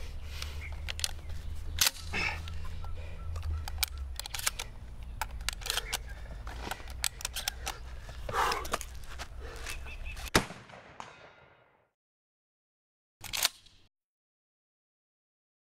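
Pump-action shotgun worked one-handed: a quick run of clacks and clicks from the slide and action, with sharper bangs about two seconds in and about ten seconds in, the second one the loudest. The sound then fades out, and a short swish comes about thirteen seconds in.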